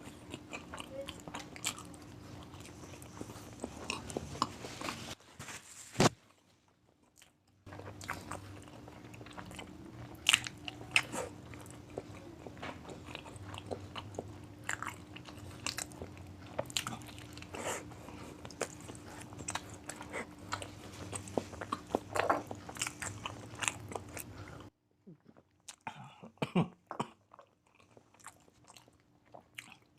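Close-miked eating: repeated crunchy bites and chewing of food, over a steady low hum that cuts out abruptly twice.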